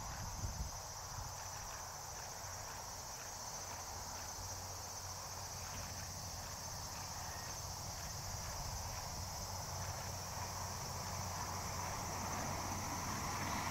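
Insects droning steadily in a high, even chorus over a low rumble that slowly grows louder toward the end.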